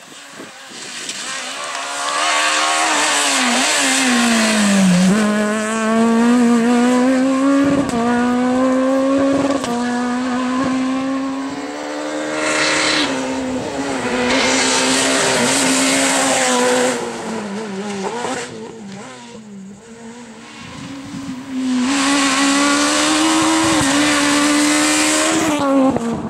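Rally cars running flat out one after another, engines at high revs. Pitch climbs and drops in steps as they shift gear, with brief quieter gaps between passes. Among them is a Peugeot 207 S2000 with its two-litre naturally aspirated four-cylinder.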